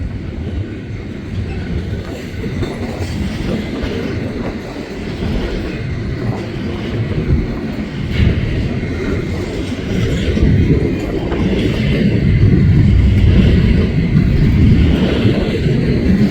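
A CSX intermodal freight train's cars rolling past, wheels clacking over the rail joints in a steady rumble that grows louder about ten seconds in.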